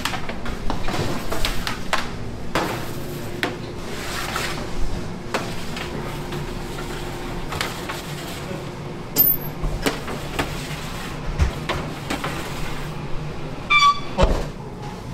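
Metal sheet pans of dough clattering and knocking on a stainless steel counter and sliding into an oven, over a steady hum of kitchen equipment. A short ringing metallic ping sounds near the end.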